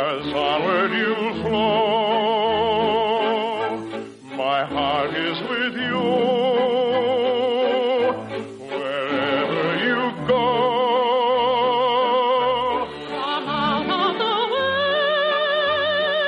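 Operatic singing from an old radio broadcast: a high voice with wide vibrato holds long notes over an orchestra, with brief breaks about four seconds and about eight seconds in.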